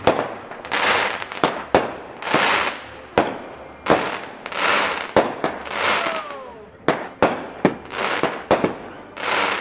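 Showtime "Texas Rattlesnake" 200-gram, 16-shot consumer firework cake firing: a sharp launch bang about once a second, each followed by a hissing crackle as its stars break into glittering bursts overhead.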